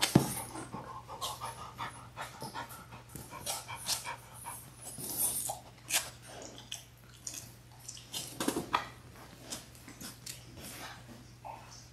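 Labrador retrievers moving about in a puppy play pen: an adult dog panting and sniffing among three-week-old puppies, with scuffling and many short, light clicks.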